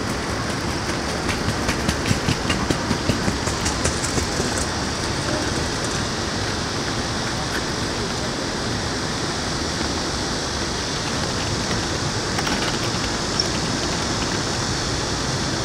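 Steady city hum and rush of a busy open plaza. In the first few seconds a hand cart's wheels clatter in a quick, regular rhythm over the paving. A single sharp tick comes near the end.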